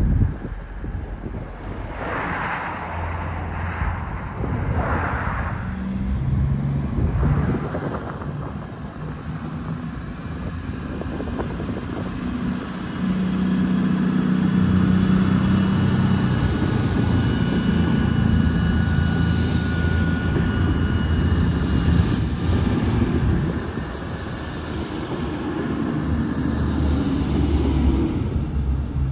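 Avanti West Coast Class 221 Super Voyager diesel-electric multiple unit passing, its underfloor diesel engines giving a steady low hum that swells in the middle as the cars go by, then fades.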